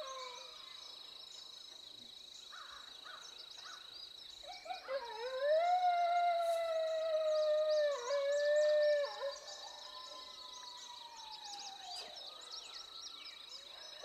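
Coyote howling: the end of one howl falls away at the start, then about five seconds in a long howl rises, holds with a couple of brief breaks, and slides down to fade out near the end.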